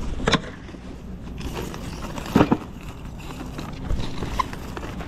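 Plastic trays of 2-liter soda bottles being set down and stacked. There is a knock about half a second in and a double knock about two and a half seconds in, over a low steady hum.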